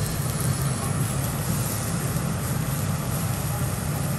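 Lobster halves sizzling on a hot teppanyaki griddle over a steady low hum.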